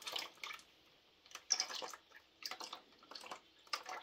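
Old tractor hydraulic oil dripping and splattering into a drain bucket in uneven clusters of drips, with a short lull about a second in.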